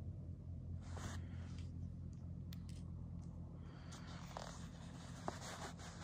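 Faint rustling and scraping handling noise with scattered small clicks and one sharper click about five seconds in, over a steady low hum.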